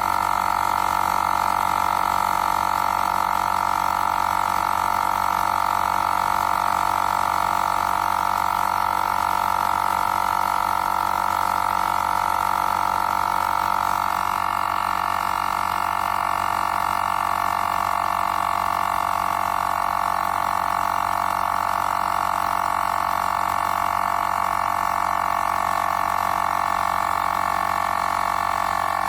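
AIRSURE portable tire inflator's small electric air compressor running steadily while pumping up a car tire toward a preset 40 PSI, its tone dropping slightly about halfway through.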